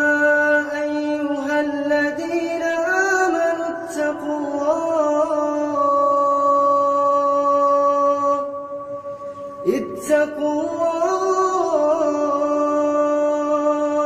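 Background vocal music: a single voice chanting a melodic line with long held notes and ornamented runs, pausing briefly a little after halfway.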